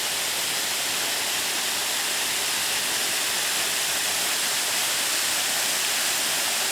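Waterfall pouring, the steady rush of Sol Duc Falls.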